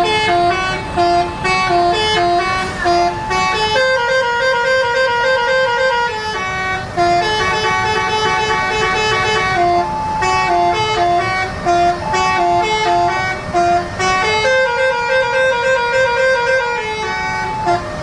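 A tour bus's telolet basuri musical horn playing a tune of quick stepping notes, with a few longer held notes. The phrase repeats about every seven seconds, going round more than twice.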